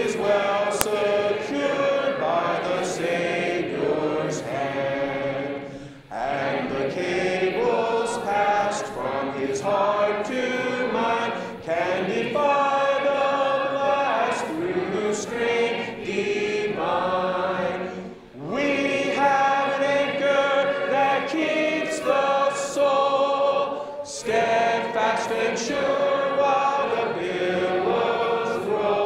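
A congregation of men and women singing a hymn together, in phrases of about six seconds with a short break for breath between them.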